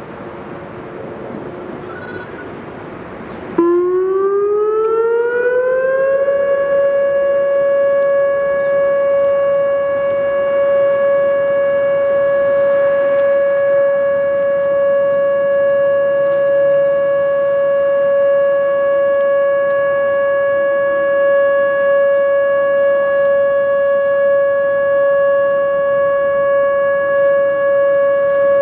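Whelen WPS 2802 electronic outdoor warning siren sounding its monthly test. About three and a half seconds in, the tone switches on abruptly, glides up over a couple of seconds, then holds one steady, loud tone.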